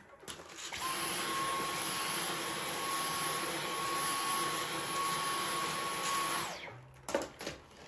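Cordless stick vacuum cleaner switched on and running steadily with a high whine for about six seconds as it sucks debris off a carpet, then switched off.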